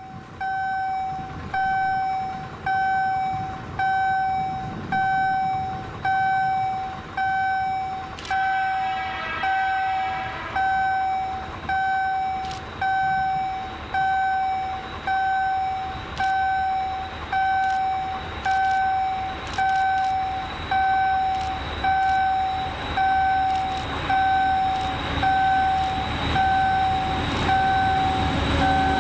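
Level crossing warning signal sounding a single-pitched ding about once a second, each note starting sharply and tapering off. Near the end the low rumble of the approaching TEM2 diesel locomotive grows under it.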